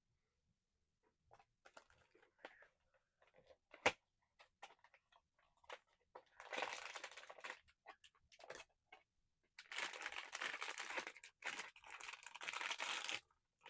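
Plastic blind-box packaging crinkling and tearing in several bursts as it is opened, with a single sharp click about four seconds in.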